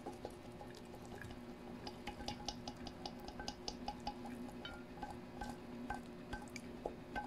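A utensil clinking and scraping against ceramic dishes as fried tofu and chicken pieces are served onto a plate: a string of light, ringing clicks, quickest in the middle and more spread out near the end.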